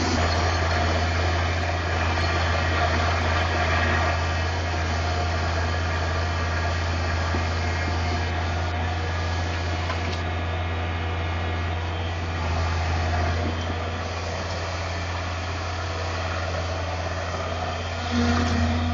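Caterpillar 225 hydraulic excavator's diesel engine running steadily as the machine digs, with a short rise in the engine note near the end.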